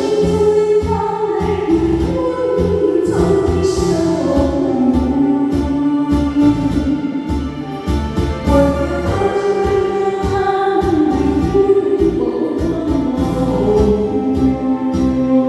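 Taiwanese pop song: a sung melody held in long, gliding notes over a backing band with a steady beat.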